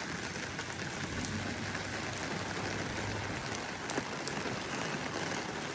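Steady rainfall hitting surfaces, an even hiss with a few sharper drop ticks.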